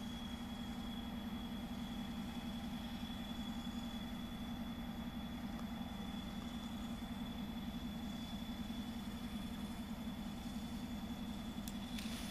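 Locomotive standing with its engine or equipment running: a steady low hum with a thin high whine over it.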